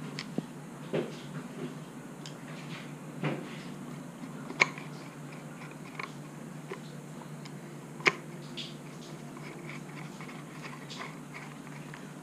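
Small screws being fitted with a screwdriver into the plastic housing of a Yamaha XTZ 125 speedometer: scattered light clicks and taps of plastic and metal, with two sharper clicks, the first about four and a half seconds in and the second about eight seconds in.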